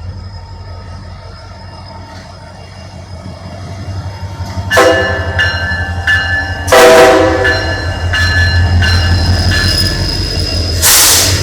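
EMD SD70M-2 diesel locomotive blowing its small horn as it approaches, over the steady drone of its diesel engine, which grows louder as it nears. The horn gives a few short blasts about five seconds in, then a louder, longer blast about a second later. A rush of noise follows near the end.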